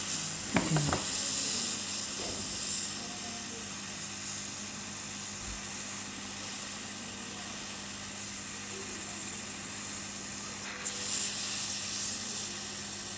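Hot-air rework blower running steadily, a continuous hiss of air over a low hum, heating the part on the phone board to soften it.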